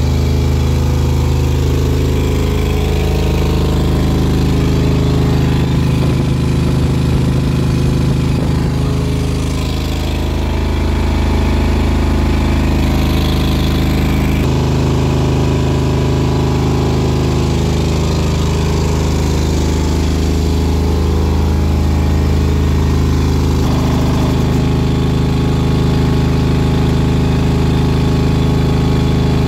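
Montoya belt-driven piston air compressor (T-04/8 pump) powered by a 5 HP FAW electric motor, running on a test run: a loud, steady mechanical drone, shifting slightly in tone about 14 and again about 24 seconds in.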